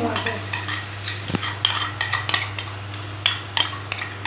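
A metal spoon clinking and scraping against the side of a metal cooking pot as thick masala is stirred, in irregular knocks several a second. A steady low hum runs underneath.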